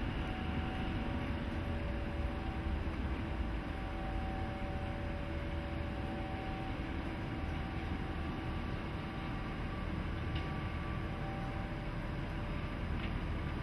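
Steady hum and low rumble of an FS E.656 'Caimano' electric locomotive and the depot turntable turning it slowly, with faint thin whines coming and going over it.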